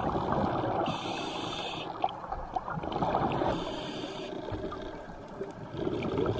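Scuba diver's regulator breathing heard underwater: a hiss on each inhale, roughly every three seconds, with exhaled bubbles rumbling and gurgling in between.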